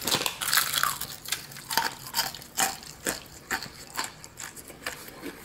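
Crispy battered crust of a fried chicken wing crunching as it is bitten and chewed close to the microphone: a bite right at the start, then irregular crackling crunches with each chew.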